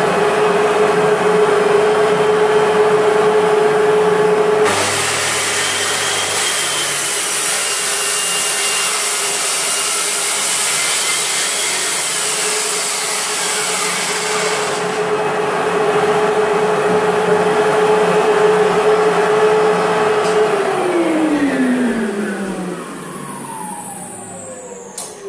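Circular saw running at full speed, then cutting through a board about 45 mm thick for about ten seconds, from roughly five seconds in. It runs free again after the cut, and near the end the trigger is released and the motor winds down with a falling whine.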